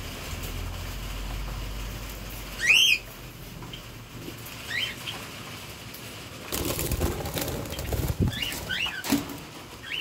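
Budgerigars chirping: a few short, quick chirps, the loudest about three seconds in and a small cluster near the end. In the second half a stretch of rustling and dull knocks runs under them.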